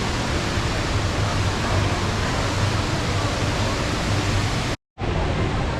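Steady rushing of a large indoor waterfall, the Rain Vortex, with faint crowd voices beneath. The sound cuts out for a moment near the end.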